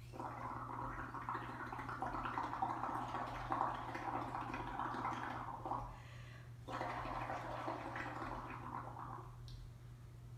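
Blowing through a straw into a cup of thinned pottery glaze mixed with a little dish soap, bubbling it up into foam. Two long blows, the first about six seconds, then a short break and a shorter second blow.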